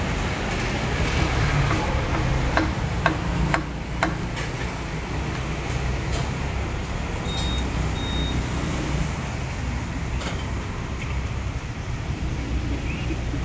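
Steady low rumble of road traffic, with a few sharp knocks between about two and a half and four seconds in, and two short high beeps a little past halfway.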